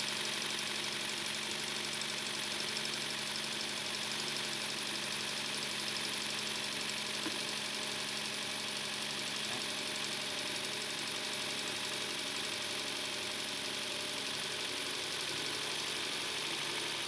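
Hyundai Santa Fe's 3.5-litre V6 idling steadily.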